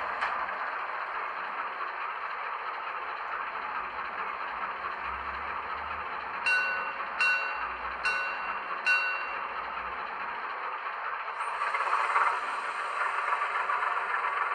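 Sound decoder of a Minitrix V 140 model locomotive playing a diesel engine running, with four short horn toots a little past the middle. Near the end the engine sound grows louder.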